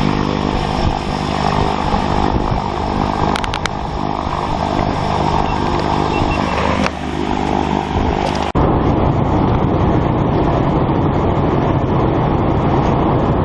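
Propeller aircraft engine droning steadily. About eight and a half seconds in, the sound cuts abruptly to a steady rushing noise.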